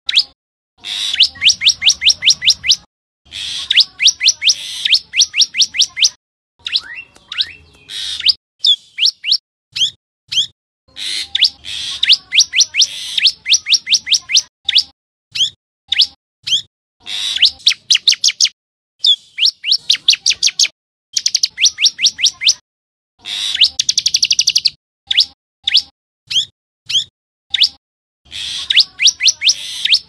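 Common tailorbird calling: quick runs of sharp, high notes, several a second, repeated phrase after phrase with short pauses between.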